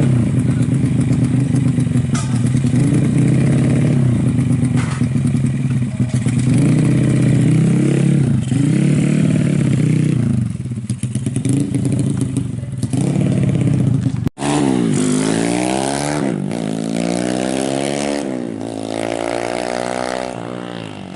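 Suzuki Smash motorcycle engine, bored up to 130cc and fitted with an AHRS exhaust, revving up and down several times. After a brief cut about two-thirds in, the pitch climbs and falls more quickly.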